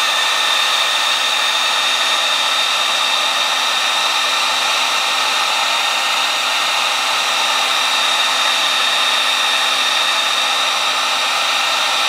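Electric hot-air heat gun running steadily, a rush of blown air with a steady high whine over it, as it shrinks heat-shrink tubing over a wire splice.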